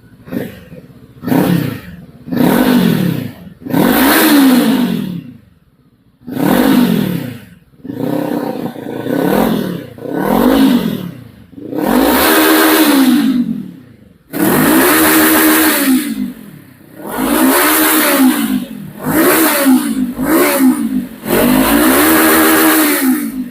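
Voge 525 DSX parallel-twin engine revved in place through a Zeus Performance carbon full exhaust with silencer, during a final sound check. About a dozen throttle blips, each rising and falling in pitch, some short and some held longer, with quiet idle gaps between them.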